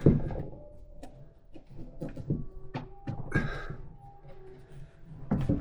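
Scattered knocks and thuds of flat-pack furniture parts being handled, the loudest just at the start, with a brief rustle a little past three seconds in.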